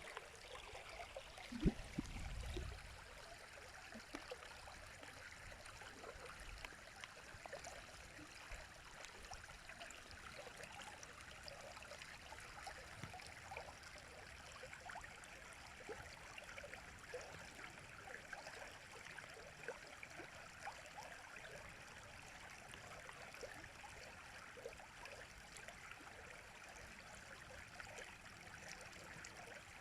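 A river running steadily: a faint, even rush of flowing water. About two seconds in there is one brief low thump.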